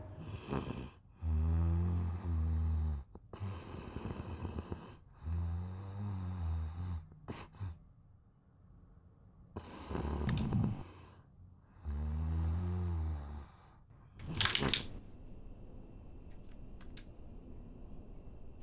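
A person snoring: slow, deep, rasping snores, about five of them a couple of seconds apart, with quiet breaths between. A short, loud, sharp noise comes about three-quarters of the way through, and a few faint clicks follow near the end.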